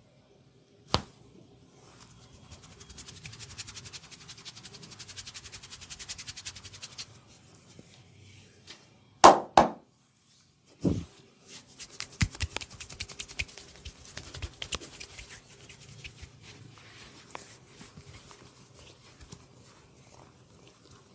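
Hands massaging a person: a sharp click, then several seconds of fast scratching and rubbing. Two loud sharp sounds follow close together, then another a second later, and after that irregular tapping and rubbing.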